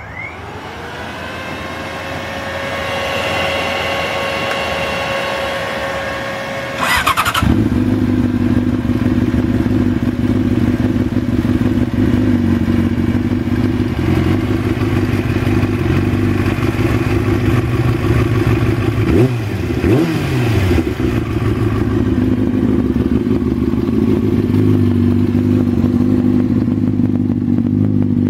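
A 2004 Yamaha R6's 600 cc inline-four being started: a steady electric whine rises to pitch and holds for about seven seconds before the engine catches with a sharp burst. It then idles steadily through a GYT-R slip-on exhaust, the idle shifting slightly a few times.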